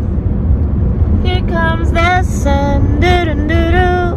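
Steady road and engine rumble inside a moving car's cabin. From about a second in, a high voice sings a few drawn-out notes over it.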